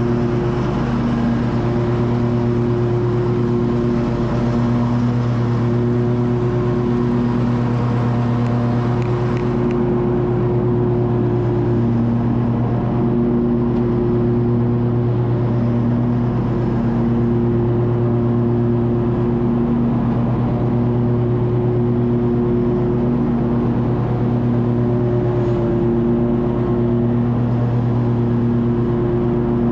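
Lawn mower engine running steadily at a constant speed, loud and even throughout.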